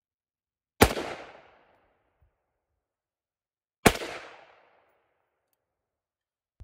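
Two rifle shots from an AR-style rifle about three seconds apart, each a sharp crack that dies away over about half a second. They are slow, aimed shots fired to zero a red dot sight.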